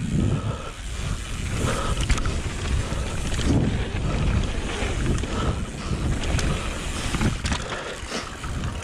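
Mountain bike riding down a rocky trail: wind rushing over the microphone with a low rumble of tyres rolling over rock and dirt, and scattered knocks and rattles from the bike.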